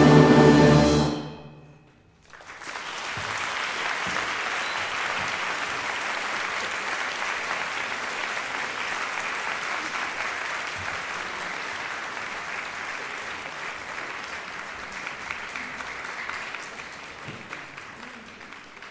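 A saxophone ensemble's final held chord cuts off about a second in; after a brief silence, audience applause starts and continues steadily, tapering off near the end.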